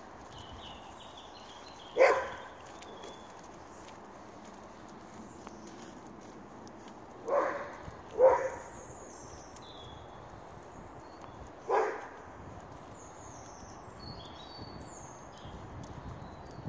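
A dog barking: a single bark, then a quick pair, then one more. Small birds chirp faintly.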